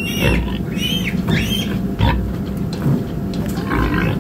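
Young piglets squealing: short, high, arching squeals, about three of them in the first second and a half and a few more later, over a steady low hum.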